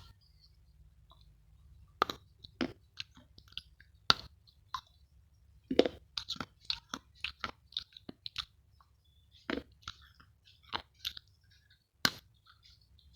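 A person biting and chewing crunchy chocolate: irregular crisp crunches that begin about two seconds in, with a sharp, loud crunch near the end.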